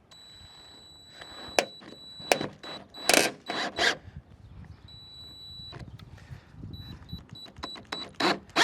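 Cordless drill motor whining steadily at high pitch as it drills into the car body's sheet metal, pausing briefly near the middle, with clicks, knocks and scraping from the bit. The bit is not biting well; it turns out to be a drywall bit, the wrong one for metal.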